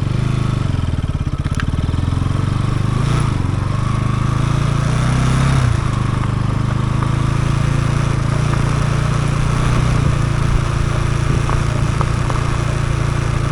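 Bajaj Pulsar NS200 single-cylinder engine running, its revs shifting up and down for the first few seconds, then settling to a steady note about six seconds in.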